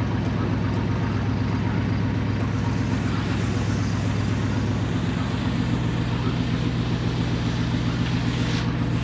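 Tractor engine running steadily at a constant speed, its pitch shifting slightly about halfway through.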